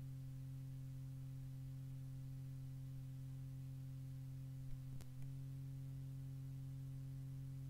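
Steady low electrical hum with evenly spaced overtones on a recording of an old radio broadcast, with a single sharp click about five seconds in.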